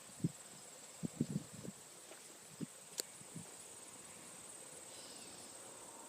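Insects trilling steadily in the background, a high continuous pulsing buzz. Several short low thumps come in the first few seconds, and a single sharp click about three seconds in.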